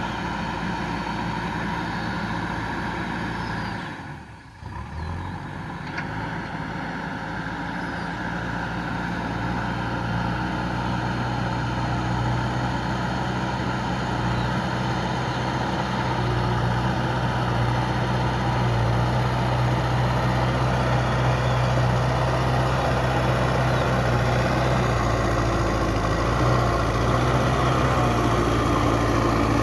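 JCB 3DX backhoe loader's diesel engine running steadily while working. It dips out briefly about four seconds in, then comes back and grows gradually louder, with a strong low engine note from about ten seconds on.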